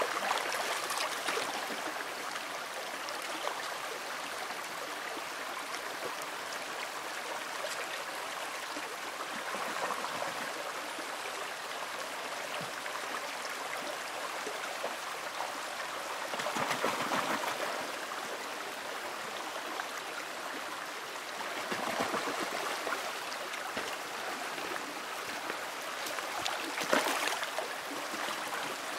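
Shallow creek water running over rocks, a steady rush that swells louder several times.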